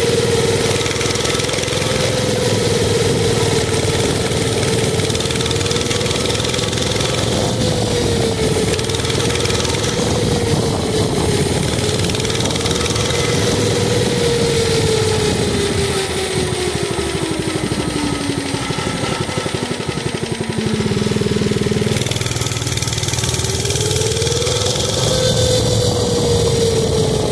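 Mini bike's small engine running under way, its pitch rising and falling with the throttle. It eases off to a low, near-idle pitch about three quarters of the way through, then revs back up and drops again near the end.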